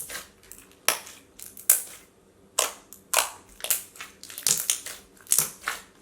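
Slime being squished and played with by hand, making a series of about eight sharp, irregular clicks and pops.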